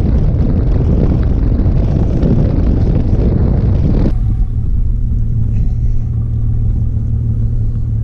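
Bass boat's outboard motor running at speed, with wind and water rushing past in a loud, dense rumble. About four seconds in this cuts off suddenly to a steady low engine drone with far less rush.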